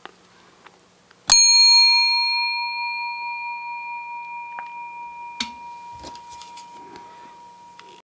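A small bell struck once about a second in, ringing with a clear tone and bright overtones that slowly fade away. A few light knocks and handling clicks follow in the second half.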